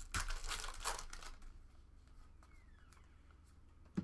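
Trading-card pack wrapper crinkling and tearing open, loudest in the first second or so, then faint handling with one sharp click near the end.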